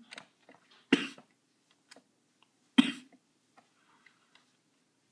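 A person coughing twice, about two seconds apart, each cough sharp and loud, from someone still recovering from an illness. A few faint clicks come between the coughs.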